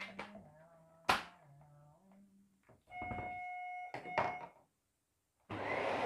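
A few sharp knocks and clicks and a steady tone lasting about a second, then near the end a Dyson vacuum cleaner switches on with a sudden rush of motor noise.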